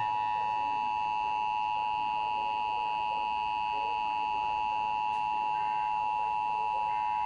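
Emergency Alert System attention signal: the steady two-tone alarm of 853 Hz and 960 Hz sounded together, starting abruptly and held unbroken. It signals the start of an emergency alert broadcast, here a flash flood warning.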